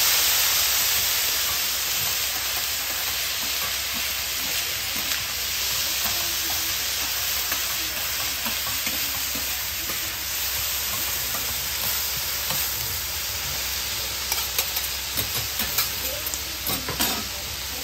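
Fujinomiya yakisoba noodles and cabbage sizzling on a hot iron teppan griddle while metal spatulas turn and toss them, scraping across the plate. The sizzle is strongest at the start, and a quick run of spatula clacks on the griddle comes near the end.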